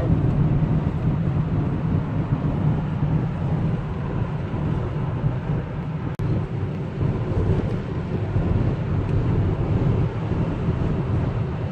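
Steady road noise inside a moving car: a constant low drone from the engine and tyres, with an even hiss of wind and road above it.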